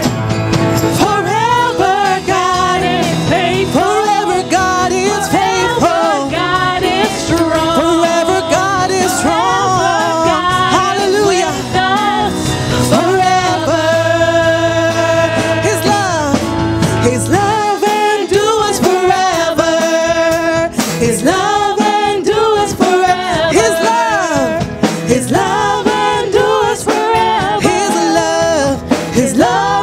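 Live gospel worship music: a praise band with keyboard, trombone and guitars backing singers. The deep bass drops out a little past halfway.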